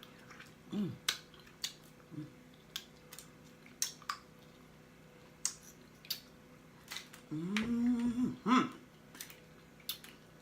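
Close-up eating sounds of mussels: sharp wet lip smacks and mouth clicks, a dozen or so scattered through, with short hums of the voice and a longer hummed "mmm" about seven seconds in.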